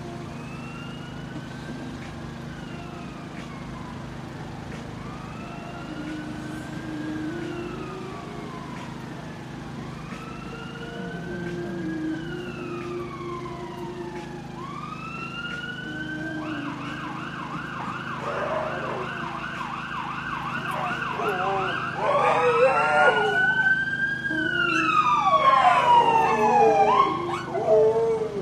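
Emergency vehicle siren going by: slow rising-and-falling wail cycles that grow louder, switching to a fast yelp a little past halfway, then a loud wail near the end. A steady low hum lies underneath.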